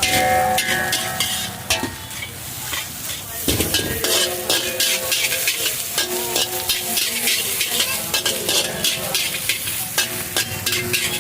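Fried rice being stir-fried in a hot wok, sizzling, with a metal ladle scraping and clanking against the wok many times a second.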